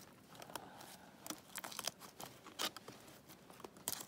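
Scattered light clicks and rustles of gloved hands working wire, tying off a trap to a tree.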